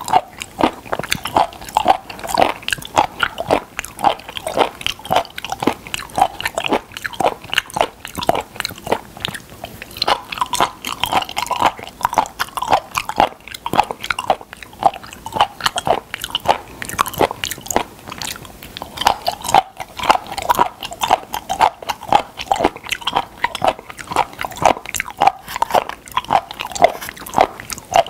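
Close-miked chewing of soft, wet food, with mouth noises coming a few times a second without a break.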